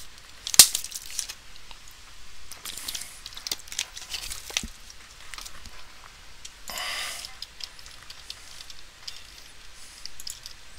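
Faint scattered clicks and light rustling, as of a computer mouse and desk handling, with a sharper click just over half a second in and a brief breathy hiss about seven seconds in.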